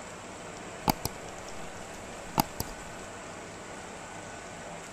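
A metal spoon knocking against a stainless-steel pot: two quick double taps about a second and a half apart, over a steady low hiss.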